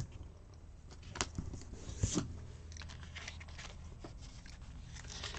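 Paper planner stickers being handled: soft rustling and crinkling of the sticker sheet and planner page, with scattered small clicks and taps as a sticker is pressed down and another is peeled off the backing sheet.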